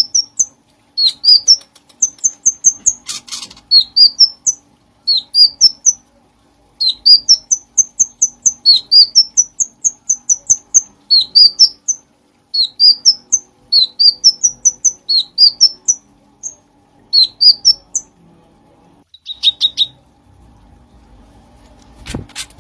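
Common iora (cucak cungkring) singing vigorously: phrases of about four to eight quick, clear whistled notes, each sweeping upward, separated by short pauses. A single sharp knock near the end.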